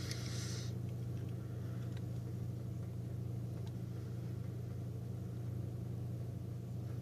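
Steady low background hum, with a brief scrape of a screwdriver prying at the smart plug's plastic case in the first second and a few faint clicks afterwards.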